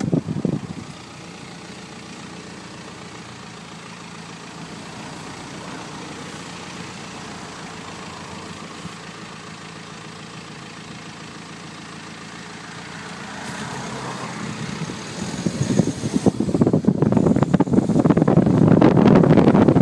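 Wind rush from a moving car buffets the microphone, then drops away about a second in as the car slows, leaving a quiet, steady car engine hum. From about fifteen seconds in the wind noise builds back up and turns loud and gusty as the car picks up speed again.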